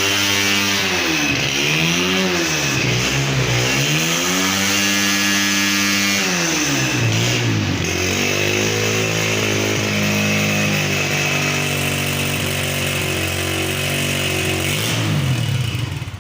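Honda 125 cc single-cylinder motorcycle engine revved up and down several times, then running steadily at lower revs before winding down near the end.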